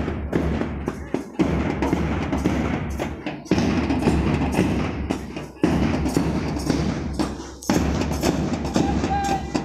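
March music with drums and a steady beat, its loudness jumping up sharply about every two seconds.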